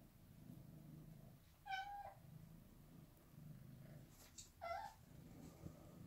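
British Shorthair cat meowing twice, two short high calls about three seconds apart.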